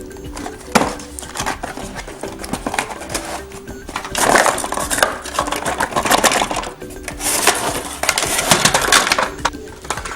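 A toy set's cardboard and plastic packaging being opened, crinkling and crackling in bursts, loudest about four seconds in and again near seven to nine seconds, over light background music.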